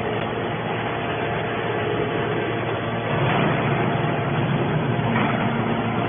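Hydraulic scrap metal baler running: a steady mechanical drone from its pump and motor, with a faint steady whine.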